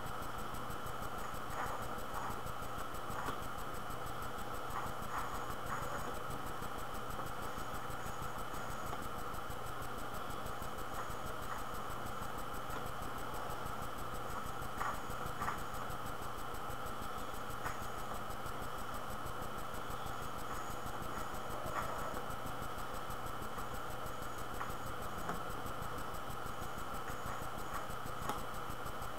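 Steady low hiss and hum of room tone, with faint soft clicks now and then from puffing on a briar tobacco pipe.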